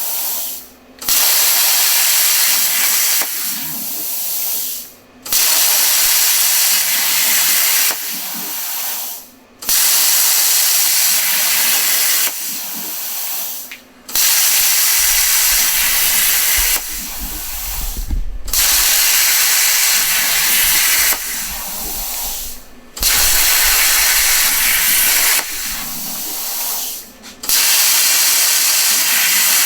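Plasma cutter torch on a CNC table cutting steel, a loud, steady hiss. About every four and a half seconds the hiss drops out for a moment and starts again.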